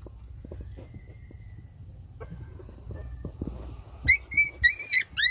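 Newborn puppies squealing: a run of short, high-pitched squeals starting about four seconds in, over soft shuffling and clicking as the puppies and their mother move about the bedding.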